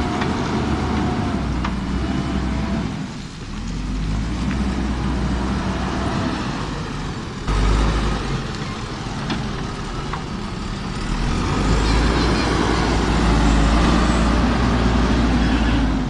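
JCB backhoe loader's diesel engine running under load as the machine pushes and spreads gravel with its front bucket, with a few sharp clicks of stones. The engine is louder in the last few seconds.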